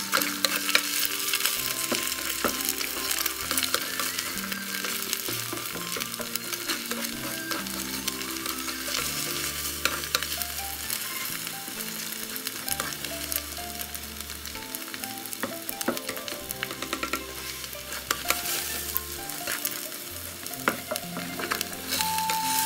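Eggs sizzling in hot olive oil in a nonstick frying pan while a spatula chops and scrapes them into pieces, with frequent clicking taps of the spatula on the pan.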